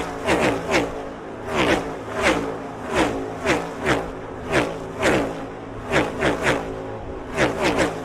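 NASCAR Next Gen stock cars' V8 engines at full throttle, passing close one after another in a steady stream. Each car's pitch drops sharply as it goes by, with the passes bunched in quick runs of two or three.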